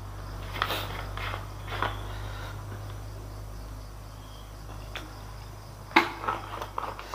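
A plastic drinking bottle being handled: clicks and knocks as its screw cap is twisted off, a quiet stretch while it is drunk from, then a cluster of clicks as the cap goes back on, all over a steady low hum.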